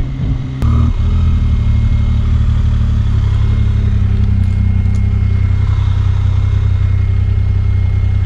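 Motorcycle engine running steadily under way on a rough gravel road, heard close up, with a single click about half a second in.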